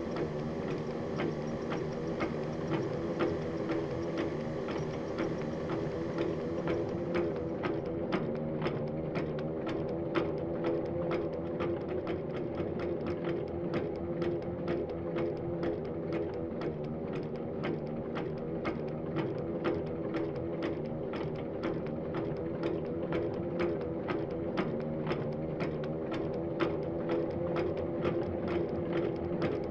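Machinery running steadily, a low hum with a regular clicking of a few clicks a second.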